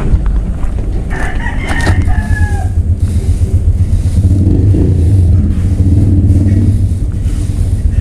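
A rooster crows once, about a second in, over a loud, steady low rumble.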